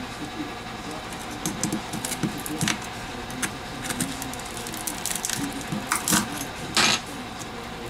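Metal pry tool clicking and scraping between a phone's frame and its heat-softened display module as the glued screen is levered off. There are scattered sharp clicks, with one longer scrape near the end, over a steady background hum.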